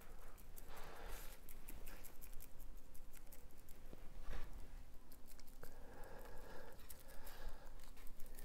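Dry rub being shaken from a shaker bottle onto a slab of pork side ribs: a light, irregular patter of quick clicks from the granules and shaker.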